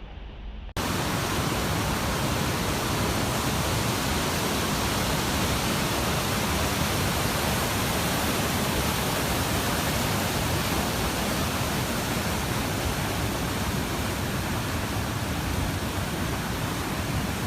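A steady, even rushing noise that starts abruptly about a second in and holds at one level until it cuts off abruptly at the end.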